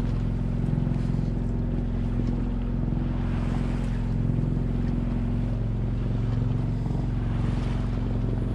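Small sailboat's engine running at a steady speed while motoring, a constant hum with water washing along the hull and wind on the microphone.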